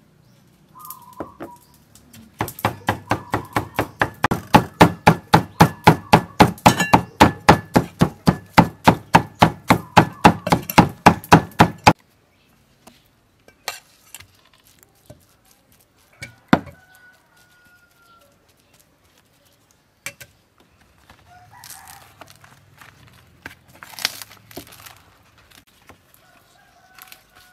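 Cleaver rapidly chopping fish paste on a thick wooden chopping block, about four strikes a second for ten seconds, stopping abruptly about twelve seconds in. A few scattered knocks follow.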